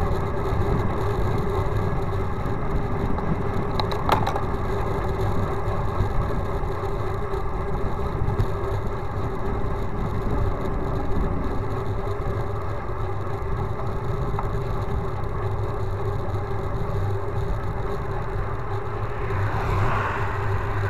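Steady rumble and rattle of a road bike rolling along asphalt, picked up by a handlebar-mounted action camera, with a sharp click about 4 seconds in. A car passes close by near the end, its noise swelling and fading.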